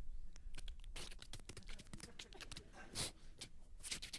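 Mouth-made sound effects into a microphone: a run of short, scratchy hissing noises, the loudest about three seconds in.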